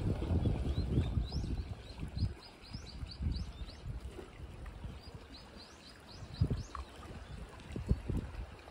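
Wind rumbling unevenly on the microphone, heaviest in the first couple of seconds. A small bird sings two quick runs of short rising chirps, about a second in and again around five seconds in.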